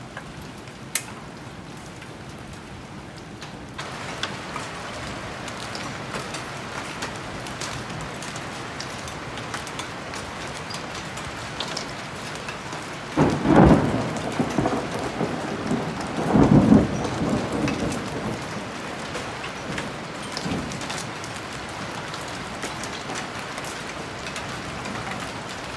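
Hail and rain falling steadily, a constant hiss scattered with small ticks of hailstones striking; the downpour gets heavier about four seconds in. Two loud rumbles of thunder come about halfway through, a few seconds apart.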